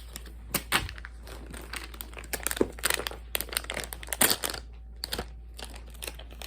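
Plastic blind-bag packaging crinkling and tearing as it is handled and opened by hand, in irregular bursts of crackling.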